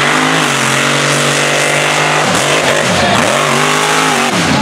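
Mega truck's engine held at steady high revs as the truck slides on dirt, then revs dropping and picking up again several times in the second half.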